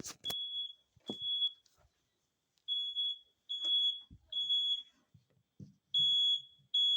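Smoke alarm beeping a loud, high-pitched tone in repeated groups of three beeps with a short pause between groups, set off by smoke from cooking.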